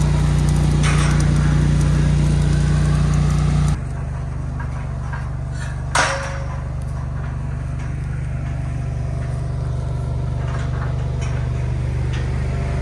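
An engine idling steadily throughout. In the first few seconds a welding arc crackles at the steel fence rail, and about six seconds in there is a single sharp metal clank with a short ring.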